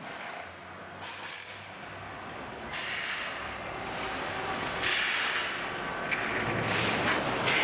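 Mechanical factory sounds with clicking and bursts of hiss, growing louder toward the end.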